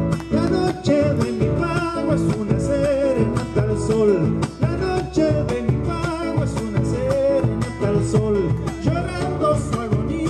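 Live Argentine folk gato: strummed acoustic guitar and a bombo legüero drum with a male voice singing, the voice coming in about a second in.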